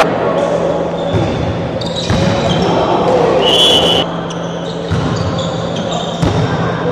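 A volleyball thumps on the hard gym floor several times, echoing in a large hall, with a short referee's whistle blast about three and a half seconds in that signals the serve.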